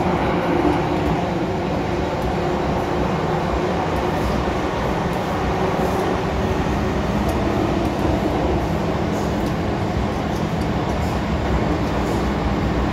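MTR Tsuen Wan Line M-Train running through the tunnel, heard from inside the car: a steady rumble of wheels and running gear with a low, even hum.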